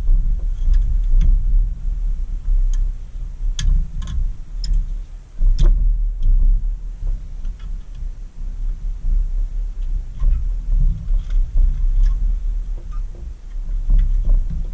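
Hand tools and the pressed-steel body and mast of a vintage Tonka toy forklift being handled while it is taken apart. Scattered sharp metal clicks and taps, the clearest a few seconds in, come over low thuds and rumble from handling on the carpet.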